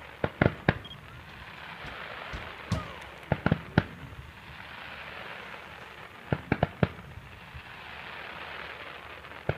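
Fireworks going off: quick clusters of three or four sharp bangs, three times over, with a steady hiss between them.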